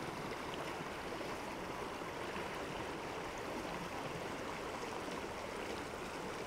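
Steady rush of a flowing mountain stream.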